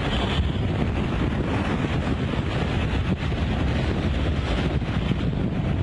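Hurricane-force wind, gusting past 100 mph, blowing hard and buffeting the microphone in a loud, steady rush, with driving rain in it.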